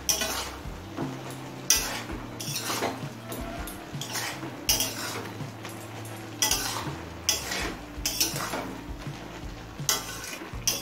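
Flat metal spatula stirring wet chopped water lily stems in a metal karai, scraping against the pan in irregular strokes about once a second or so, mixing in salt.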